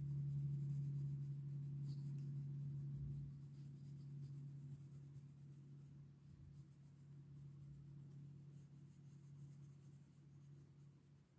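Oil pastel rubbing back and forth on paper as an area is coloured in. Under it runs a low steady hum, loudest for the first three seconds and then fading.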